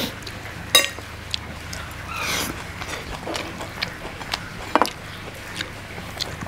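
Close-up eating sounds: a person eating rice and fried dishes by hand, with scattered sharp clicks and crunches of chewing, two louder clicks and a short rustle in between, over a low steady hum.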